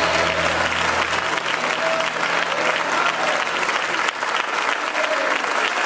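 Congregation applauding, a dense, steady clapping. The last held chord of the song's accompaniment dies away about a second in.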